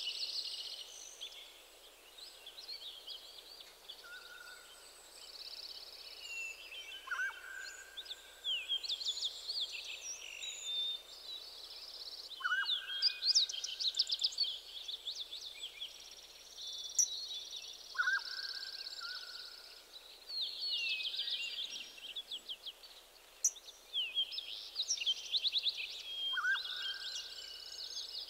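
Birds and insects calling in woodland: overlapping clusters of rapid high chirps and trills, with a short whistled note that recurs every few seconds.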